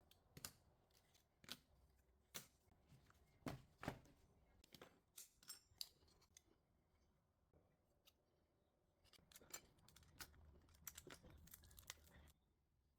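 Scattered sharp clicks and taps of hands working on a RAM module and its heatsink. Near the end a faint steady rustle joins the clicks and cuts off abruptly.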